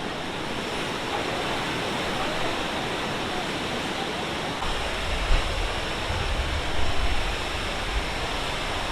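Athabasca Falls, a large glacier-fed river waterfall, rushing in a steady, dense roar of water. A deeper low rumble comes in about halfway through, with a couple of brief swells.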